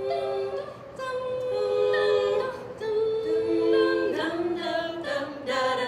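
A vocal group singing held chords in close harmony, a cappella and without clear words, the chord shifting every second or so.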